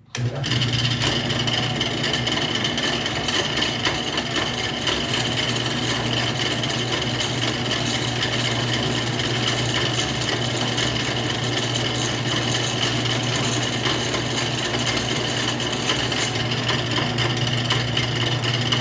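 Drill press starting up and running steadily as a 7/64-inch bit drills out a stripped scope base screw through a shotgun receiver, with a steady motor hum and a high whine.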